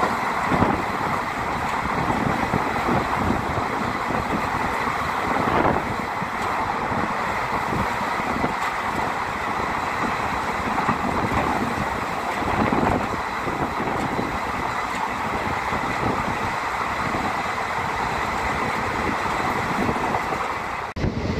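Steady running noise of a passenger train in motion: an even rumble and rush that holds level throughout, with a short abrupt break just before the end.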